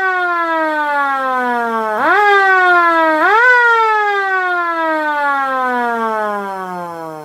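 LK-JDW105 air raid siren winding down in a falling wail, briefly powered up twice, about two and three seconds in, so that its pitch jumps back up each time. It then coasts down, the pitch sliding lower and the sound fading near the end.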